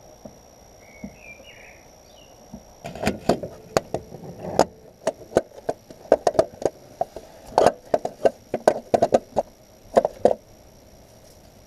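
A run of irregular sharp knocks and clinks, typical of hand tools worked against car parts during a clutch job. They start about three seconds in and stop shortly before the end.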